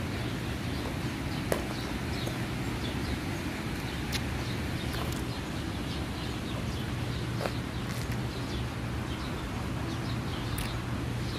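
Steady outdoor background noise with a constant low hum, broken by a few scattered short clicks and faint chirps.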